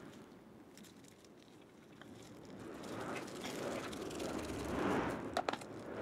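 A soft rushing noise swells and fades, then a few sharp clicks come as a motorcycle carburetor is handled and set down in a plastic parts tray.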